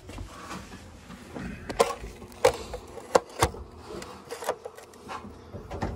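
Handling noise from a camera being moved and set in place: irregular sharp knocks and taps, about half a dozen, with rubbing in between.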